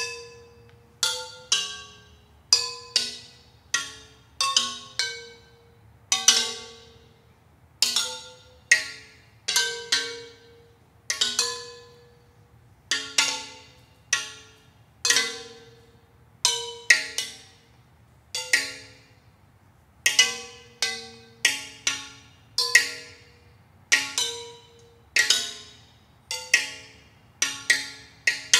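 Hand-thrown ceramic bowls struck with thin sticks, each stroke a clear, bell-like ringing tone that dies away within about a second. Bowls of different pitches sound one after another at roughly one or two strokes a second, now and then in quick pairs or triplets.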